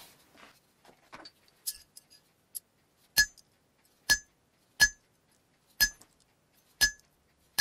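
Hammer striking a small chisel held on a thin steel plate on an anvil, marking a decorative line pattern. There are light clicks of the tool being set at first, then six sharp blows about a second apart, each with a brief high metallic ring.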